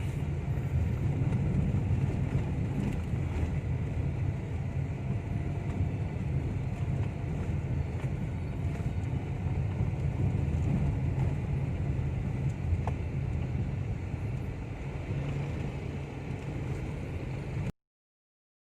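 Cabin noise of a Toyota Wigo on the move: a steady low road and engine rumble, with no dashboard rattle now that the rattle has been fixed. The sound cuts off abruptly near the end.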